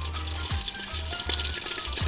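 A pot of bessara, a thick fava bean and green herb purée, simmering on the stove with a steady fizzing hiss and small crackles, over background music with a low bass line.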